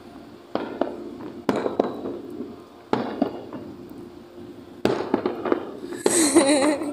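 Aerial fireworks shells bursting overhead: a series of sharp bangs at irregular intervals, each trailing off in a rumbling echo. Near the end the bursts come thicker, with a hiss and a wavering pitched sound over them.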